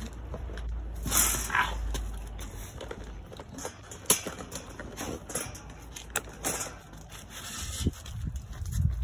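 A dog eating from a plastic food bowl: irregular crunching and scraping, with sharp clicks of the bowl knocking about.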